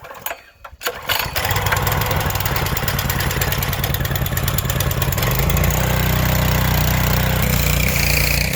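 Small gas engine of a 2,900 PSI pressure washer starting up about a second in and running steadily; about five seconds in its note deepens and grows a little louder.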